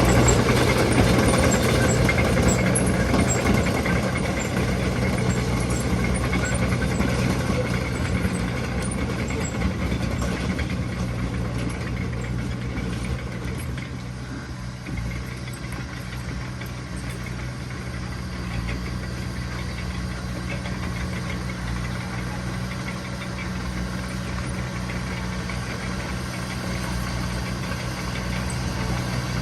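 Heavy diesel engine of earthmoving machinery running steadily, louder at first and easing to a lower, even level about twelve seconds in.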